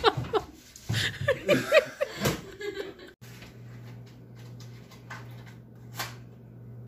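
People laughing and chuckling. After about three seconds this cuts off abruptly to a quieter, steady low hum with faint ticks and a single short click near the end.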